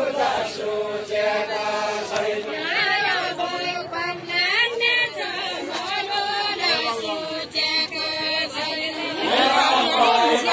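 Deuda, the far-western Nepali folk song, sung by a group of voices together in a chant-like melody without instruments. The singing swells louder about nine seconds in.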